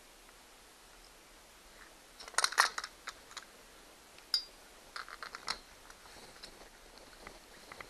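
Metal clicks and clinks of a steel die stock and 5/16-inch die being handled on a steel screw post: a quick cluster of sharp clicks about two and a half seconds in, then scattered single clicks.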